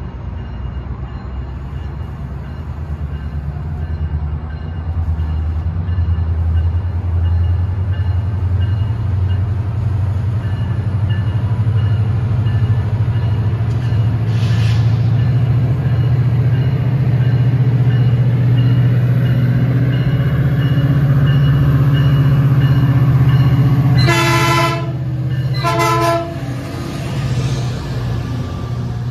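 Metrolink MP36PH-3C diesel locomotive, with its 16-cylinder two-stroke EMD prime mover, approaching with a passenger train: a low engine drone grows steadily louder, then two short horn blasts near the end as the locomotive and bilevel coaches pass close by.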